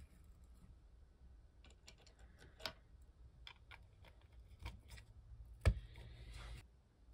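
Light clicks and taps of small parts and screws being handled and fitted into a hard part by hand, with one sharper click near the end followed by a brief rustle.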